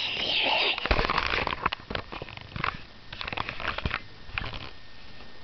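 Handling noise from plastic toys being moved close to the microphone: a short hissing rasp at the start, then scattered clicks and rustles.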